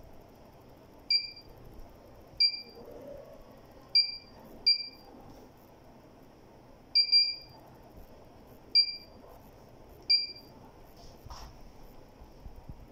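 Keypad beeps of a JADEVER JWQ-6K electronic weighing scale: about nine short, identical electronic beeps at irregular intervals, one per key press, as its limit values are being set and adjusted.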